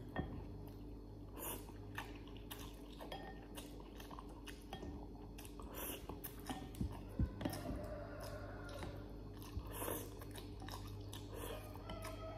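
A person eating noodles with chopsticks: wet chewing and slurping, heard as many short irregular mouth smacks.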